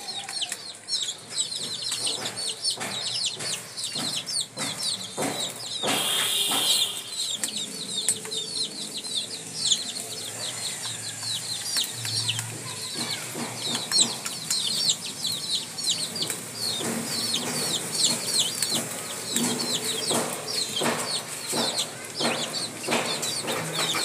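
A brood of baby chicks peeping continuously in short, high, falling chirps, with a mother hen clucking now and then and small taps of beaks pecking on a hard floor. A brief rustle about six seconds in.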